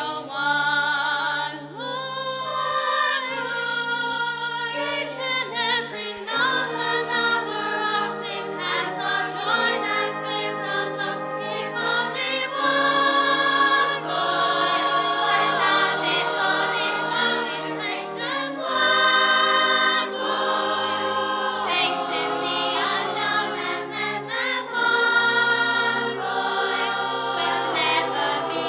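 Music: several voices singing together like a choir, with sustained, wavering notes.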